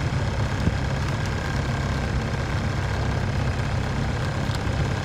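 Sailboat's auxiliary engine running steadily with a low, even hum while the boat motors along under power.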